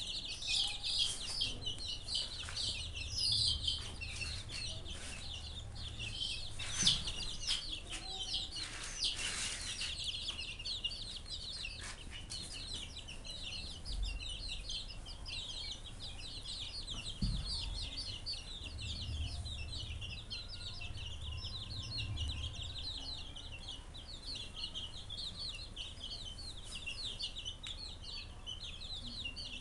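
A flock of young chicks peeping continuously, many short high chirps overlapping. A few brief knocks come in the first ten seconds.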